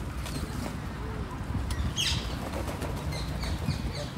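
Small birds chirping in short high calls, one falling call about halfway through and a quick run of calls near the end. Light clicks and rattles from bicycles being handled in a rack, over a low outdoor rumble.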